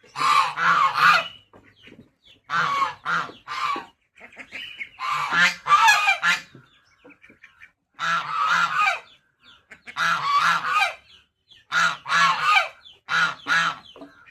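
Domestic geese honking loudly and repeatedly, in short bursts of two or three harsh calls every couple of seconds.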